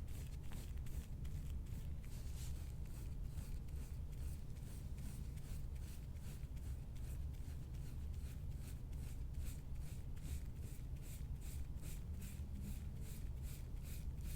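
Scraping soft-tissue tool stroked repeatedly over the skin of the ribs, a quick rhythmic scratching of about two to three strokes a second.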